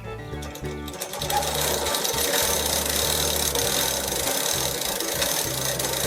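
A small petrol engine running steadily, coming in about a second in, under background music with a steady bass line.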